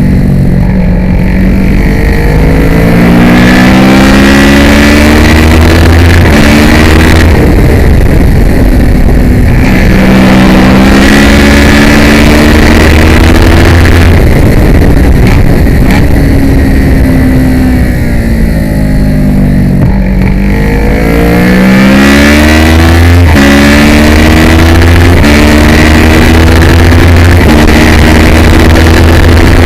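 Kawasaki ER-6 racing motorcycle's 650 cc parallel-twin engine at race pace. It revs up through the gears with a short drop in pitch at each upshift, falls away through downshifts for a long braking stretch about two-thirds of the way in, then climbs hard again through the gears.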